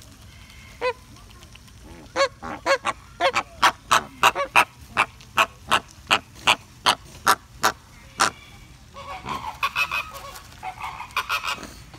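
A flock of American flamingos honking. A single goose-like honk comes about a second in, then a steady run of short honks, about three a second, and near the end a denser bout of overlapping calls.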